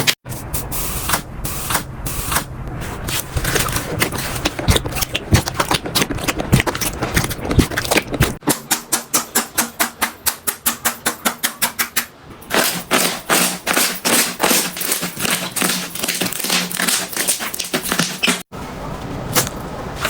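Slime being handled and squeezed by hand, a dense run of crackling, popping clicks. It comes in several short clips that cut abruptly from one to the next, one of them a steady run of about five clicks a second.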